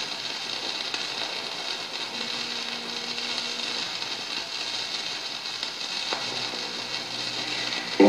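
Steady surface hiss and crackle of a 7-inch acetate record playing a silent stretch of groove, with one faint click about six seconds in. Guitar music starts at the very end.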